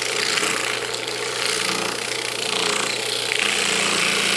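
Dayton 1/2 HP single-phase induction motor running on a pure sine wave inverter, with a steady hum under a rough, rasping mechanical noise as the motor is put under load.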